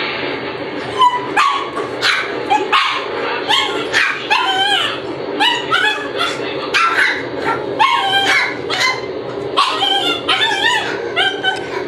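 Shiba Inu puppies yelping and yipping over and over, short high calls that rise and fall in pitch, several overlapping at once.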